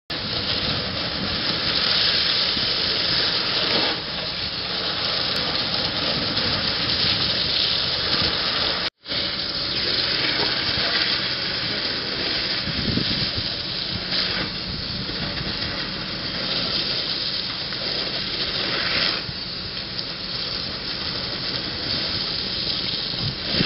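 Steady, loud rushing hiss of water spray and steam on a burning barn fire, broken by a brief dropout about nine seconds in.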